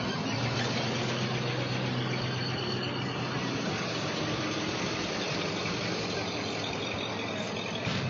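Pickup-based tow truck driving up and turning in close by: steady engine and tyre noise.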